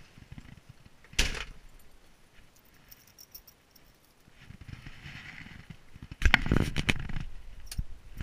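Door of a Citroën Dyane 6 shut with a single bang about a second in, then keys jingling faintly, and from about six seconds a loud cluster of knocks and rattling from the car's cabin.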